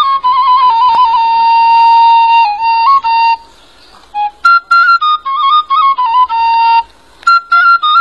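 A high, flute-like melody played in short phrases of stepping notes, with two brief pauses, one near the middle and one near the end.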